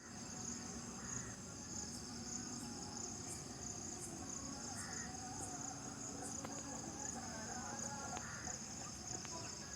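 A chorus of insects chirring steadily at a high pitch, with a faint, regular high tick about every two-thirds of a second.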